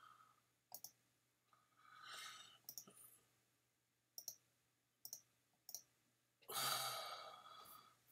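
A handful of sharp computer mouse clicks, spaced roughly a second apart, with a longer, louder rush of breathy noise about six and a half seconds in.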